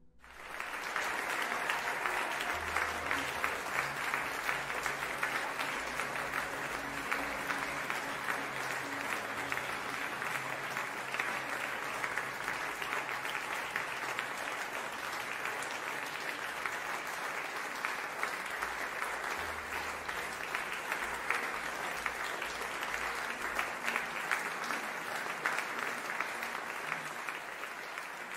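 Applause, a dense clapping that starts about half a second in and keeps on steadily, easing a little near the end.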